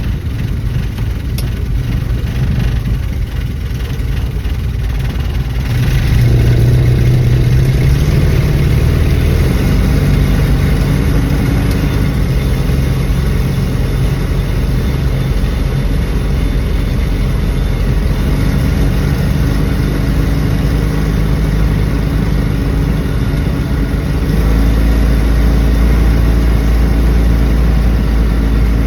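A 1974 Dodge Dart's engine running steadily. It gets louder about six seconds in, and a deeper drone comes in near the end.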